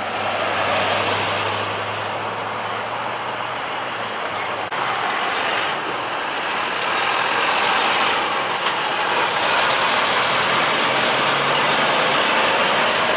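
Road traffic noise at an intersection, then a semi truck hauling a shipping container driving past close by, its engine and tyres making a steady rushing noise. A thin high whine runs through the second half.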